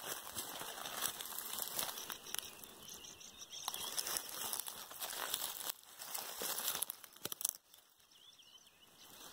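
Irregular crunching and crackling of footsteps through dry, brittle crop stubble, dying down near the end.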